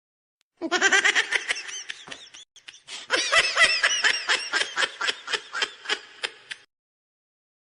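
A person laughing hard in quick, repeated bursts, several a second, with a short break near the middle; it starts about half a second in and stops abruptly about a second before the end.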